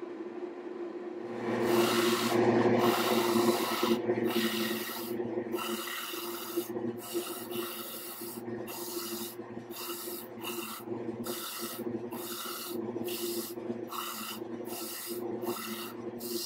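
Black walnut block being sanded on a spinning sanding disc mounted on a lathe, with the motor humming steadily. About a second in, the block goes onto the disc with a loud rasping hiss, held for a few seconds, then pressed on and lifted again and again in short strokes, about one and a half a second.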